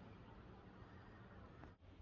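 Near silence: faint room tone, with a brief dip near the end.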